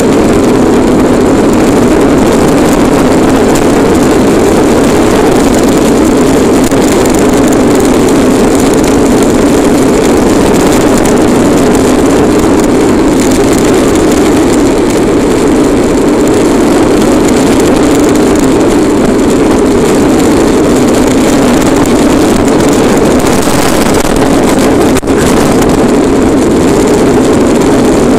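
Loud, steady roar of a Bobby-Car's plastic wheels rolling fast down asphalt, with wind rushing past at speed. There is one momentary dip near the end.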